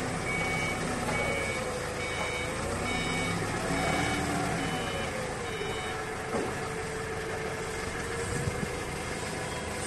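Heavy forklift's engine running with its warning beeper sounding about one and a half beeps a second, stopping about five seconds in. The engine pitch rises and falls as it moves the load.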